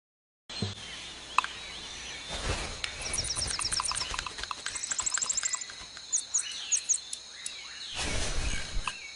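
Nature-ambience sound effect that starts abruptly about half a second in: birds chirping in quick high trills over a steady high-pitched tone, with scattered clicks.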